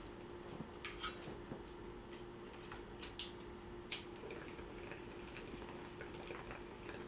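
A few short, sharp clicks and scrapes of small objects being handled, the loudest about three and four seconds in, over a faint steady hum.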